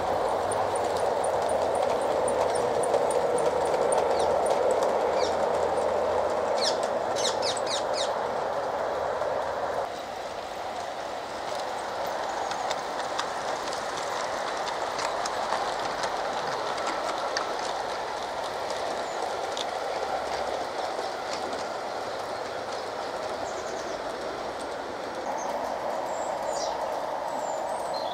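LGB battery-powered Corpet-Louvet model locomotives running with their coaches and wagons on garden track: a steady whir of motors and gears, with wheels clicking over the rail joints. The sound drops abruptly and changes about ten seconds in.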